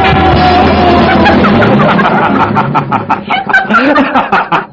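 A person's voice held in one long high-pitched wail, then breaking into quick, choppy cackling sounds for the rest of the stretch.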